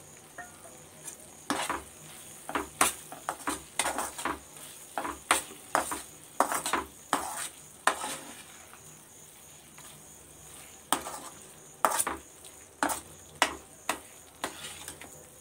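Perforated metal spoon stirring thick carrot halwa in a stainless steel pan, with many irregular scrapes and knocks of metal on metal. The stirring pauses for about two seconds in the middle, then resumes.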